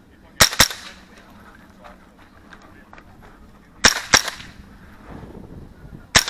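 AR-style carbine with a CMMG .22 LR conversion firing three quick pairs of shots: one pair about half a second in, another near four seconds, and a third at the very end.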